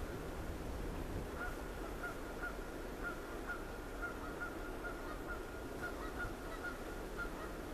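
Distant geese honking in a long series of short, repeated calls that stop shortly before the end, over a steady background hiss.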